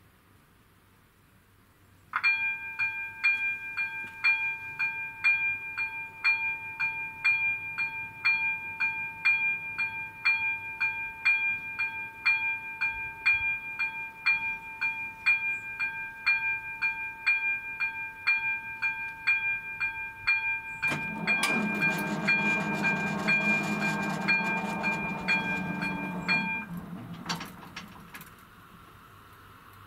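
Level-crossing warning bell of an AŽD 97 crossing signal starts about two seconds in, ringing a repeated electronic ding in a steady rhythm. About twenty seconds in, a train passes over the crossing, and the bell cuts off shortly before the train noise dies away.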